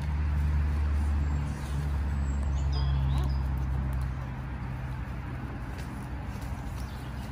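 Low steady engine hum, loudest for the first four seconds and then fading, with a few faint bird chirps about three seconds in.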